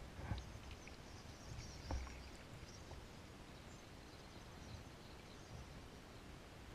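A large flock of small birds twittering faintly, many scattered high chirps overlapping. Two low thumps stand out, one just after the start and one about two seconds in.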